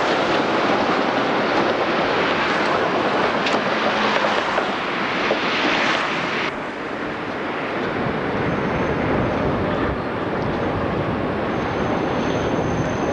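Tram passing close, a loud, dense running noise with a few sharp clicks. About halfway it cuts abruptly to a duller, lower street-traffic rumble of cars and an oncoming tram, with a faint thin high tone near the end.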